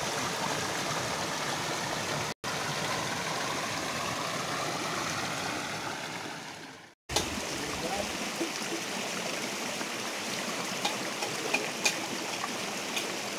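Small rocky forest stream rushing and splashing over stones in a steady flow. The flow cuts out abruptly twice, about two and a half and seven seconds in, and a few light clicks come near the end.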